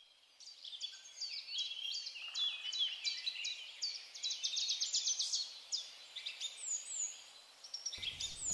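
Small birds chirping and singing in quick, high, repeated notes, with a fast trill about halfway through, over a faint steady outdoor hiss. A low rumble comes in just before the end.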